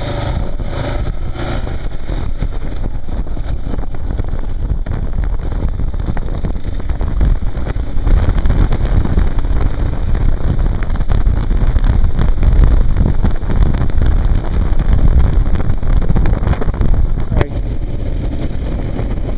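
Wind rumble on the microphone over the running noise of a moving vehicle, getting louder about eight seconds in and dropping back shortly before the end, just after a single sharp click.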